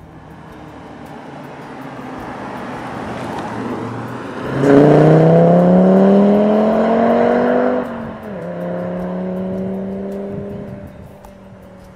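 2012 Audi TT RS's turbocharged 2.5-litre five-cylinder engine under hard acceleration. The sound builds gradually, then the engine note jumps in loudness and climbs in pitch for about three seconds. A gear change drops the pitch, and the note carries on more quietly and fades as the car drives away.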